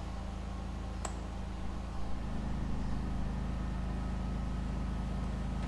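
Portable generator engine running with a steady low hum; a single click about a second in as the oven's power lead is plugged in, and about two seconds in the engine note shifts and grows a little louder as the electric oven element comes on and loads it.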